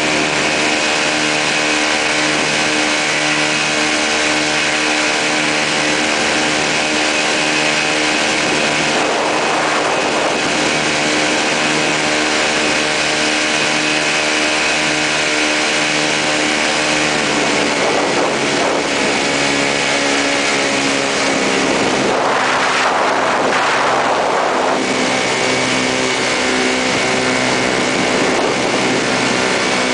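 Quicksilver MX ultralight's two-stroke engine and pusher propeller running steadily in flight, heard from the open seat, with rushes of wind on the microphone now and then. About two-thirds of the way through, the engine note drops a step and stays lower: the engine is throttled back as the aircraft descends.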